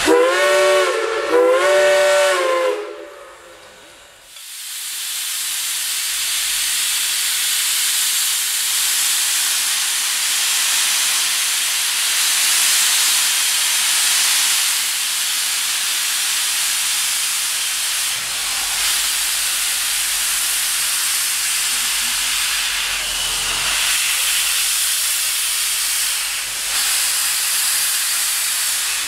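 Ex-GM&O 4-6-2 Pacific steam locomotive #425: its multi-tone steam whistle sounds for about three seconds. After a brief lull, a steady loud hiss of steam blows from the open cylinder cocks, the engine clearing water from its cylinders as it gets ready to move.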